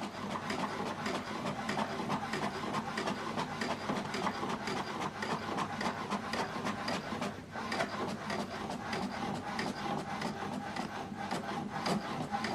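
HP DeskJet 4200-series inkjet printer printing a page: the printhead carriage shuttles back and forth with a steady rapid rasping and clicking, pausing briefly about seven seconds in.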